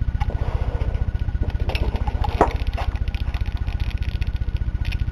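High-voltage arc from a CRT TV's flyback transformer, drawn off its anode lead with a screwdriver: a steady, rapidly pulsing buzz with sharp crackling snaps, loudest about halfway through.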